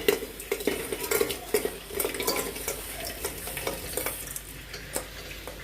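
Lumps of jaggery being put into a pan with a spoon: an irregular run of clinks, knocks and scrapes of the spoon and pieces against the vessel.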